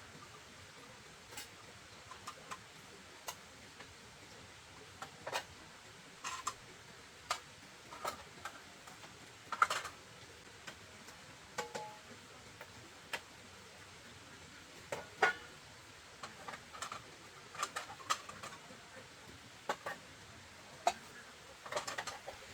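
Scattered light clicks and knocks at irregular intervals, about one or two a second, over a faint background hiss.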